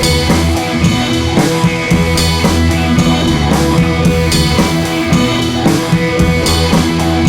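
Rock background music with drums, bass and electric guitar, a steady beat throughout.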